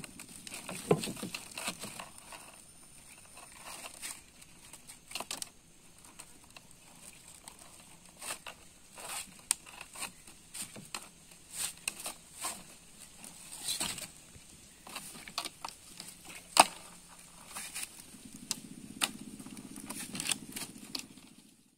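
Nylon fishing net rustling and crinkling as it is handled, with scattered sharp knocks and taps against the boat and a net-covered basket as caught snakehead are worked into it. The sharpest knock comes past the middle.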